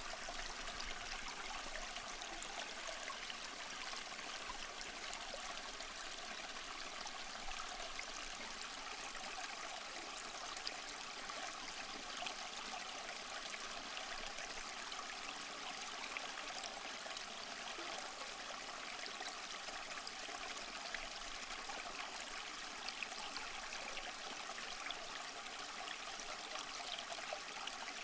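Small stream flowing steadily, water trickling and burbling over stones.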